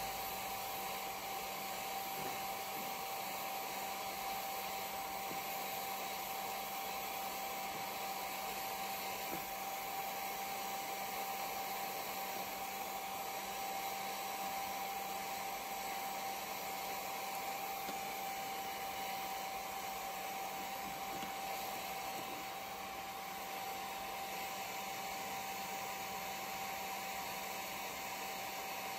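Handheld hair dryer running steadily: a rush of blown air with a constant steady whine.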